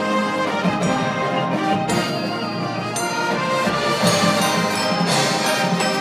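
A full marching band of brass and saxophones playing sustained chords that change every second or so.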